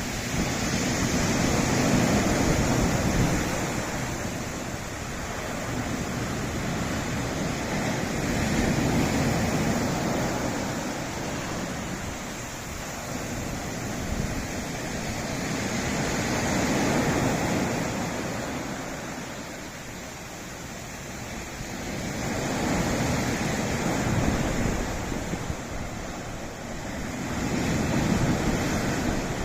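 Sea waves washing against a rocky shore, the surf swelling and falling away in slow surges about every six to eight seconds, with wind buffeting the microphone.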